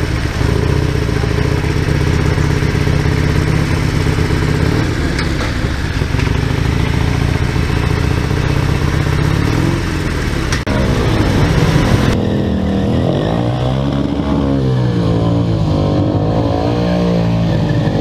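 Harley-Davidson air-cooled V-twin motorcycle engine running at a steady high speed for about ten seconds. Its note then drops, and after a cut motorcycle engines rev up and down again and again.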